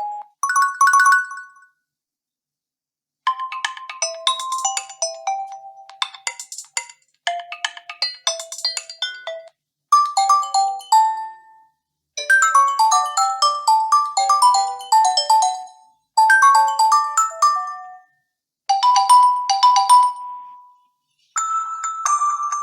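Preset ringtone melodies of a Nokia 1 DS phone, played one after another: several short, bell-like tunes a few seconds each, separated by brief silences.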